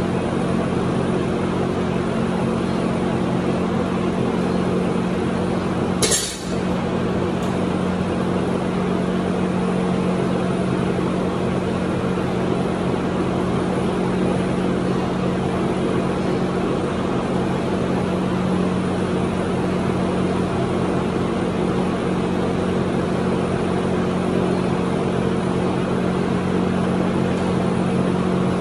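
A steady mechanical hum with a low drone runs throughout. About six seconds in, a loaded barbell hits the floor once with a sharp clank.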